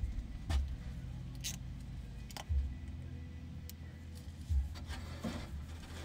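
Scattered light clicks and taps, roughly one every second, from metal parts being handled inside a truck door, over a low steady rumble.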